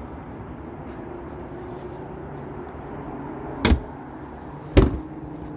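A Chrysler Pacifica minivan's hood being pushed shut: two sharp thuds about a second apart as it comes down and latches, over a steady low hum.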